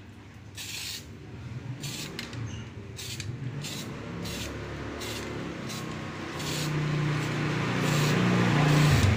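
Aerosol clear-coat spray can hissing in short bursts of about half a second. From about halfway through, a passing motor vehicle's engine hum grows louder and is the loudest sound near the end.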